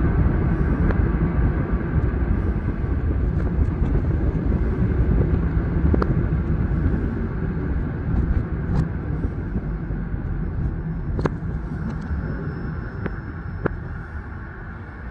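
Steady low rumble of road and running noise from a car driving alongside a passing freight train, with scattered sharp clicks. The rumble eases slowly toward the end.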